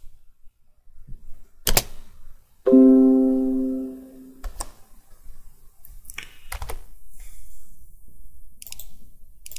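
Several computer mouse clicks, and about three seconds in a single chime from the computer that fades away over about a second and a half: a Windows notification sound as the phone's driver drive is detected.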